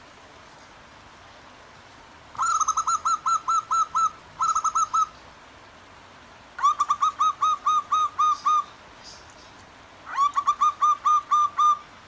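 Zebra doves calling in three runs of quick, short cooing notes, about five a second, with a faint steady sound of running water underneath.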